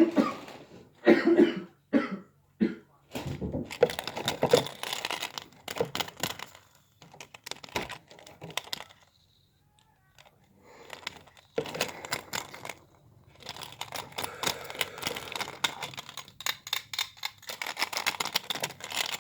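Hands handling a Spin Master Monster Jam toy monster truck and its packaging: crinkling plastic and many small plastic clicks and knocks, with a short pause about halfway through.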